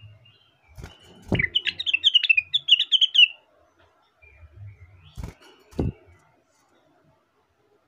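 A rengganis (cucak wilis) leafbird singing one fast, twittering phrase of about two seconds. Dull knocks come as the phrase starts and twice more about two seconds after it ends.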